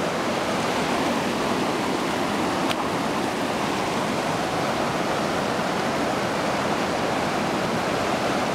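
Rushing water of a Class II river rapid, a steady, even wash of whitewater, with one faint click a little under three seconds in.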